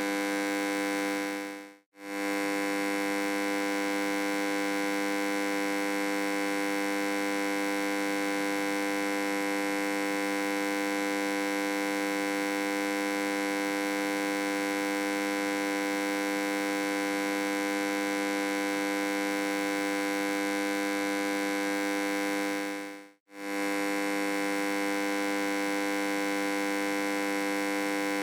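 Electrical hum: a steady drone rich in overtones, which fades out for a moment and straight back in twice, about two seconds in and again about five seconds before the end.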